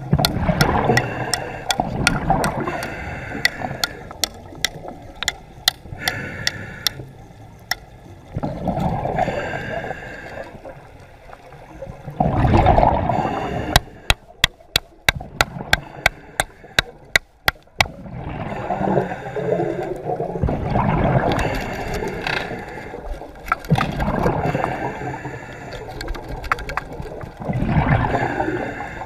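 Water sloshing and gurgling around an underwater camera in surges about a second long, with runs of sharp clicks, densest as a string of about four or five a second for several seconds midway.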